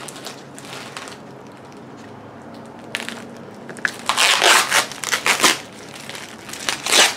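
Plastic bag and bubble wrap crinkling and crackling in bursts as they are pulled off a wrapped part, fairly quiet for the first few seconds and loudest about four to five and a half seconds in and again near the end.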